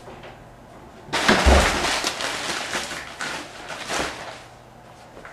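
A sudden thump with a burst of crackling rustle about a second in, fading over the next couple of seconds, with another short rustle near four seconds.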